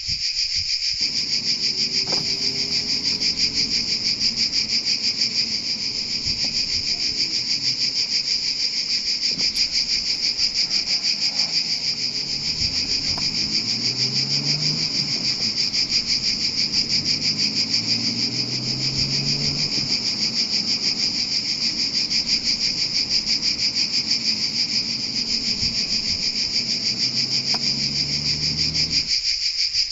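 A loud, dense chorus of cicadas buzzing steadily with a fast pulse. A car's engine sounds faintly underneath, rising and falling in pitch, and drops out near the end.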